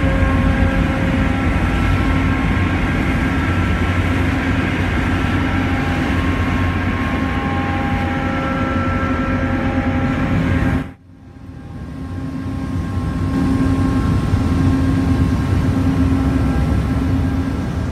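Heavy machinery running steadily: a loud low drone with several steady whining tones. It cuts out abruptly about eleven seconds in, then swells back up over a second or two and runs on.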